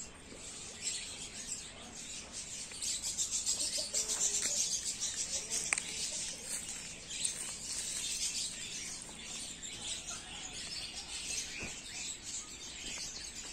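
Outdoor ambience of small birds chirping over a high, fast, steady trill, loudest in the first half.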